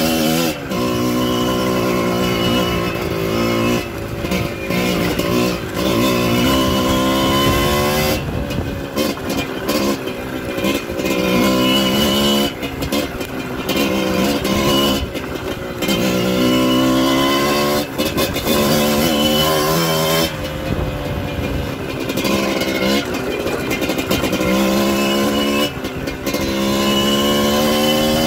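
Small trail motorcycle engine being ridden, revving up and easing off again and again: its pitch climbs for a few seconds, drops back, and climbs again about eight times.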